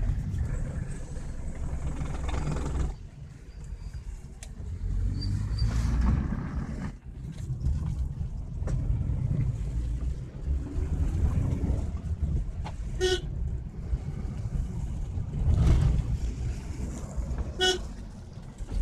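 Car driving, heard from inside the cabin: a steady low engine and road rumble that rises and falls. Two short horn beeps sound in the second half, about four and a half seconds apart.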